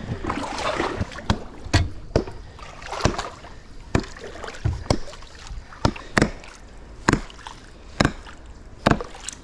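Hatchet chopping a waterlogged log at the waterline: about a dozen sharp strikes, roughly one a second, each with a splash. A brief rush of noise comes just before the first strike.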